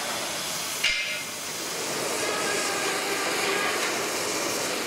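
Gas cutting torch hissing steadily as its flame cuts through a steel plate, with one sharp knock about a second in.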